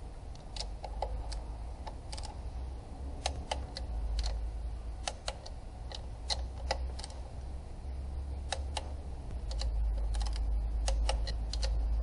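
Ratchet wrench on an extension clicking in short, irregular runs as engine bolts are turned by hand. Light metal ticks are mixed in, over a steady low rumble that grows louder near the end.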